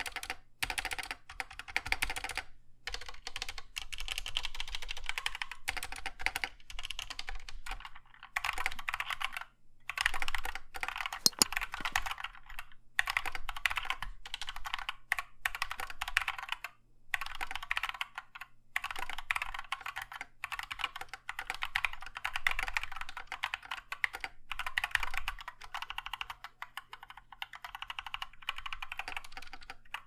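Fast, continuous typing on an Epomaker SK61 60% keyboard with Gateron optical brown switches and PBT keycaps: a dense run of key clacks, broken by a few brief pauses.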